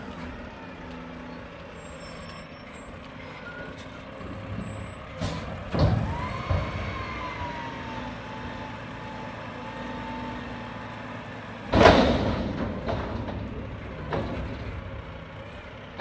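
Mack front-loader garbage truck with a McNeilus body running as it works a dumpster: a sharp air-brake hiss about six seconds in, followed by a whine that falls slowly, then a louder air-brake hiss about twelve seconds in as the hydraulic forks lift the dumpster.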